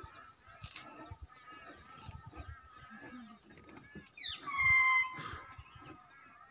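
Wild grassland ambience: a steady high-pitched insect drone with faint bird chirps. About four seconds in, a loud animal call sweeps steeply down in pitch, then holds a steady tone for about half a second.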